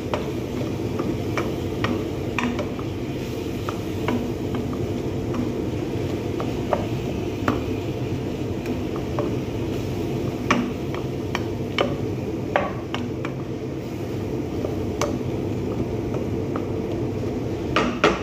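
Vegetables being stir-fried in an aluminium pot, a wooden spatula knocking and scraping against the metal in irregular clicks, a few sharper knocks near the end. A steady low hum runs underneath.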